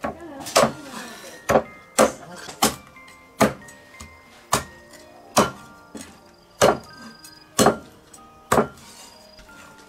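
Meat cleaver chopping raw chicken into pieces on a thick wooden chopping block: about ten sharp chops, roughly one a second, stopping near the end.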